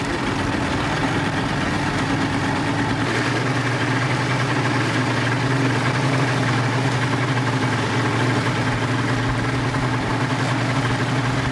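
Speedboat engine running steadily at low speed, heard from on board. A steady low hum that gets stronger about three seconds in, over a constant wash of engine and water noise.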